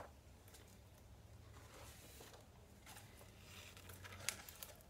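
Near silence, with faint paper rustling and one short sharp click a little after four seconds in, as a picture book's pages are handled and turned to the title page.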